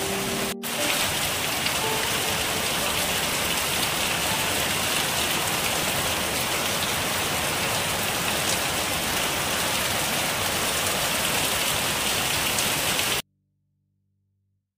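Heavy rain pouring steadily onto trees, leaves and waterlogged muddy ground, a continuous hiss with no single drops standing out. It breaks off for an instant just under a second in and cuts off suddenly near the end.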